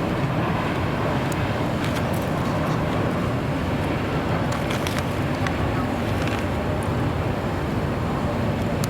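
Steady low rumbling noise with a few faint clicks, unchanging in level throughout.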